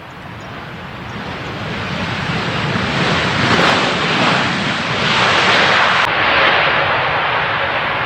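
Jet airliner on landing approach passing close by, its engine noise swelling to a peak about three to six seconds in and staying loud to the end.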